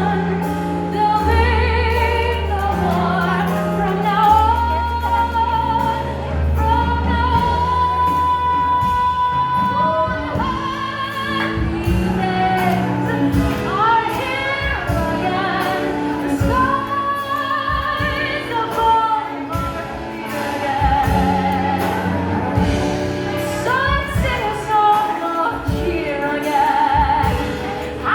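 Live vocal duet, sung with strong vibrato over instrumental accompaniment with sustained bass notes. One long high note is held for about two seconds, some eight seconds in.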